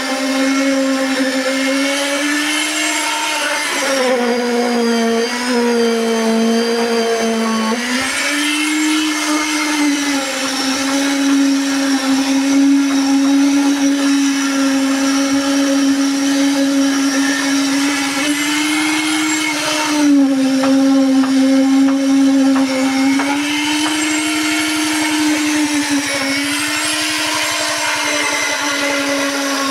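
Flexible-shaft concrete poker vibrator running steadily as its needle is worked through freshly poured concrete. Its hum sags in pitch several times, most deeply from about four to eight seconds in, then comes back up.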